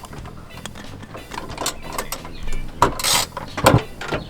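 Hand tools on the metal fixings of a car's rear seat: scattered clicks and knocks of metal on metal, with a short scrape about three seconds in and a couple of louder knocks after it.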